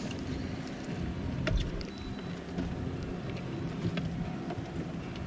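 Steady low hum and rumble aboard a small fishing boat, with a few light clicks and knocks, one about a second and a half in and another near four seconds.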